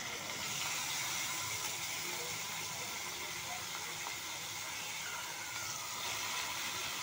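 Soaked raw chicken pieces sizzling steadily as they go into a pan of hot oil and onion-tomato masala.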